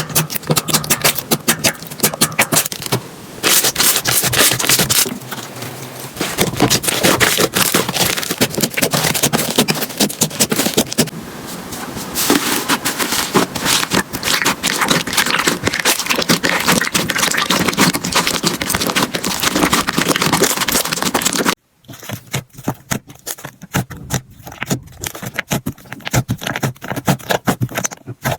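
Slime being squeezed, poked and stretched by hand, giving dense crackling and popping clicks. About 21 seconds in it cuts abruptly to another batch with sparser, softer pops.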